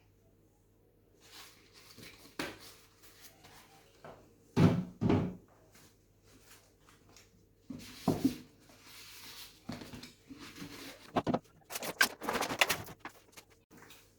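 Household items being handled and set onto fridge shelves and into drawers: scattered knocks and clatter, two loud thumps about five seconds in, another a few seconds later, and a burst of rustling and clatter near the end.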